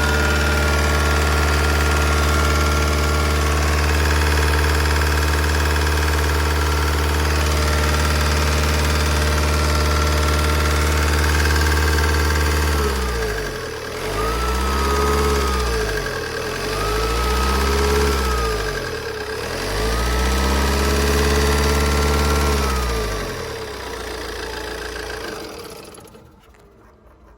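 Insignia 2.0 CDTi 160 hp diesel engine idling steadily, then revved up and back down three times, before the sound falls away near the end. It carries a noise that the owner wonders may be lifter tick.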